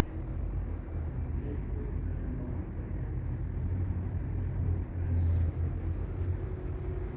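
Steady, muffled low rumble with nothing high-pitched in it, of the kind heard from traffic or machinery; it swells a little about four and five seconds in.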